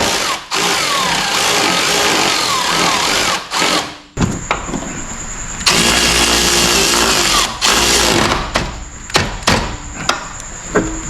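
A power tool running in two long bursts, each a few seconds, its motor pitch gliding up and down. A few sharp clicks and knocks come near the end.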